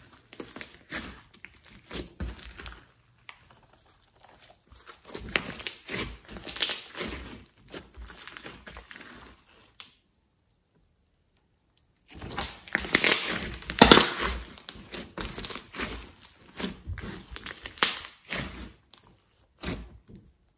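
Hands squeezing, stretching and pressing a thick slime mixed with clay: sticky squishing with many small clicks and pops. The sound breaks off for about two seconds midway.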